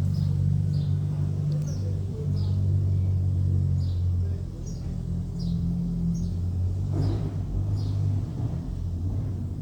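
An engine running steadily with a low hum, while a bird chirps repeatedly in short high notes over it.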